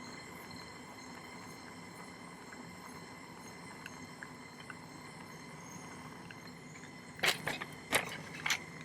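Three or four sharp metallic clinks near the end, from small jewellery tools and silver pieces handled at a soldering bench, over a steady background hum.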